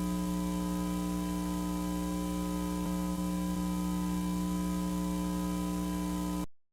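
Steady electrical mains-type hum over a layer of static hiss, which cuts off abruptly near the end into dead silence.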